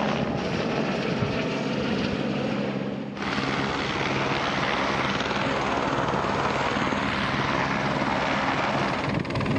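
Helicopter flying close by, its turbine engine and rotor blades making a steady noise; the sound drops briefly about three seconds in, then picks up again.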